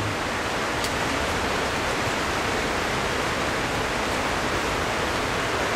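A steady, even hiss of noise with no distinct events.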